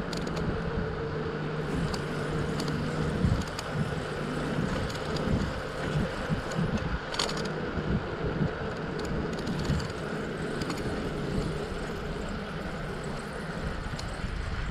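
Riding a bicycle, heard from the rider's own camera: wind buffeting the microphone with road noise, over a steady low hum that fades about ten seconds in, and a few short clicks about seven seconds in.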